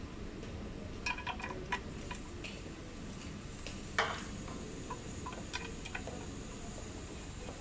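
Light metallic clicks and taps of small 10 mm bolts being fitted and threaded by hand into a transmission oil filter mount, with a sharper click about four seconds in. A steady low hum runs underneath.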